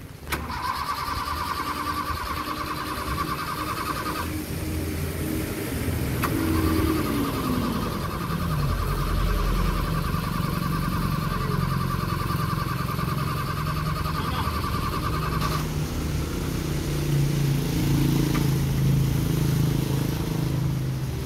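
Owner-type jeep being started: the starter motor whines in two long spells of cranking, about four seconds and then about nine, while the engine underneath fires and runs unevenly, getting stronger in the second half.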